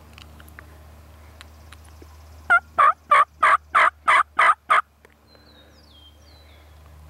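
Wild turkey yelping: a loud run of about eight notes, roughly three a second, lasting a little over two seconds, each note dropping in pitch. A few faint small-bird chirps follow.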